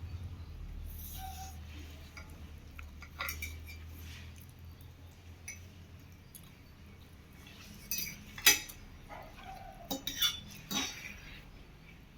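Cutlery clinking and scraping on plates while noodles are eaten, a scatter of sharp clinks with the loudest one about two-thirds of the way through.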